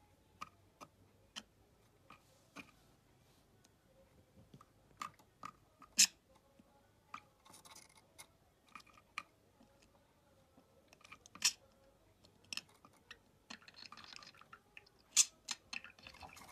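Budgerigar with its head in a nest-box entrance, feeding its incubating mate inside: irregular soft clicks and taps of the beak, with a few sharper clicks.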